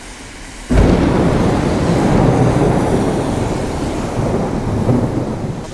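Loud, steady rushing noise of wind and rain on an action camera's microphone, starting abruptly about a second in.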